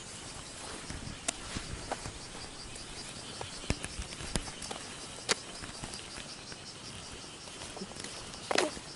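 Insects chirping steadily in a fast, even, high-pitched rhythm outdoors, with scattered sharp clicks and taps and one louder knock near the end.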